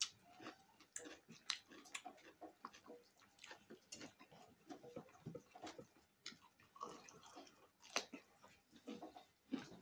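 A person eating close to the microphone: irregular wet chewing and lip smacks, several a second.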